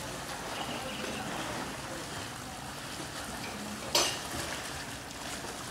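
Swimming-pool ambience: a steady wash of water and outdoor noise, with one sharp clack about four seconds in.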